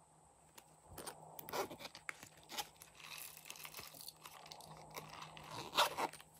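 Hands handling a bear-shaped silicone pop-it toy: irregular crackly rasps and clicks, loudest about a second and a half in and again near the end.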